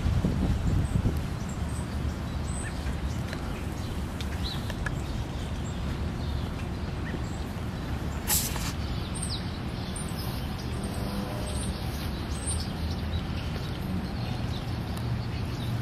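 Outdoor ambience: a steady low rumble with scattered short, high bird chirps, and a single sharp click about eight seconds in.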